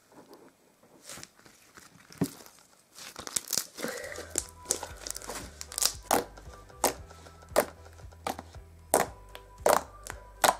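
Floam slime, purple slime packed with small foam beads, being squished and pressed by hand, giving sharp crackling pops and clicks about once a second. Soft background music comes in about four seconds in.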